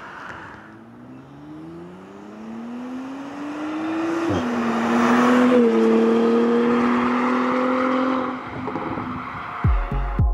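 Porsche Macan V6 with an AWE Tuning Touring cat-back exhaust accelerating toward and past the microphone. The exhaust note climbs in pitch, drops sharply at an upshift about four seconds in, and runs on at a steadier pitch as the car passes at its loudest, then fades. Electronic music starts near the end.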